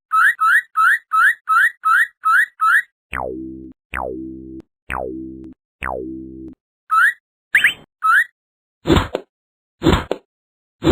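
Cartoon sound effects: a quick run of short rising boing-like chirps, then four long falling tones about a second apart. Three more rising chirps follow, and near the end there are three sharp thumps about a second apart.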